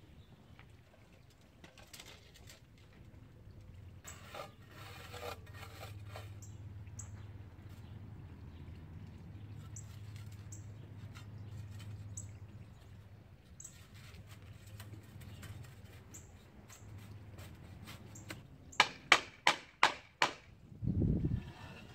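Rubber mallet tapping a wooden block laid on a stone paver to bed it level in its sand: a quick run of about seven sharp taps near the end, then one dull thump.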